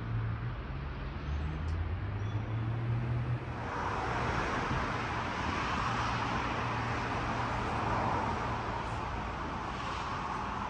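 Road traffic: a low engine hum for the first few seconds, then a broad rushing swell of passing traffic from about four seconds in that eases off slightly near the end.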